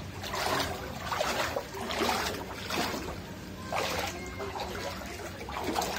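Shallow floodwater sloshing and splashing in irregular surges, roughly one a second, as it is stirred by movement through it.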